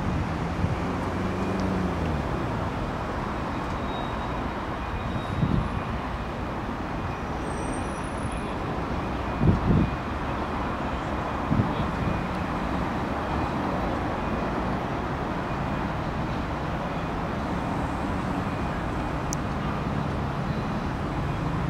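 Steady road traffic noise with a low engine hum near the start and again near the end, and a few brief low thumps, like wind buffeting the microphone, about five and a half, nine and a half and eleven and a half seconds in.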